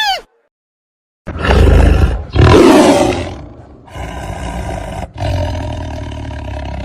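A big cat roaring loudly twice, starting about a second in, the second roar fading out. A steadier, quieter sound follows from about four seconds on.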